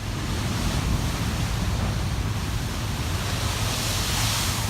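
Ocean surf washing in steadily, with wind rumbling on the microphone; a wave's hiss swells about four seconds in.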